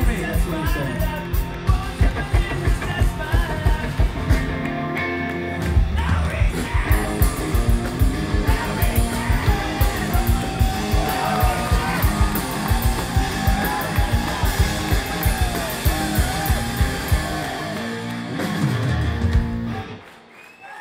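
Live rock band playing: distorted electric guitars, bass and a steady drum beat, with singing. The song stops abruptly just before the end.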